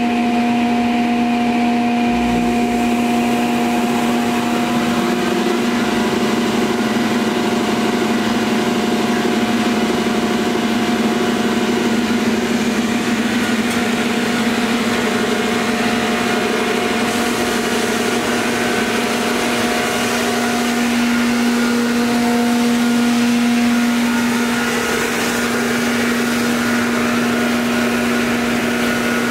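SCM DMC SD10 wide belt sander running, its 18 HP main motor driving the abrasive belt: a steady, loud machine hum with a strong low tone and a fainter higher whine, swelling slightly about three-quarters of the way through.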